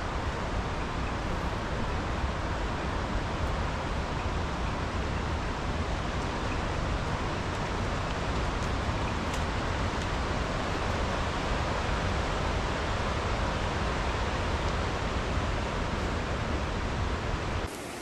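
Steady rush of heavy rain and wind, with gusts buffeting the microphone. The level drops suddenly near the end.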